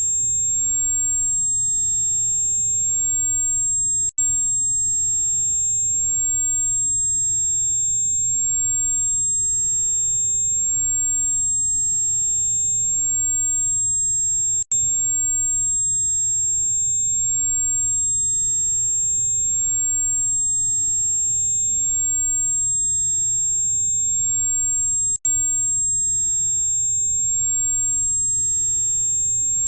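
Steady, very high-pitched electronic tone of the kind played for tinnitus sound therapy, with fainter tones above and below it over a faint low rumbling noise. It cuts out for an instant three times, about ten seconds apart.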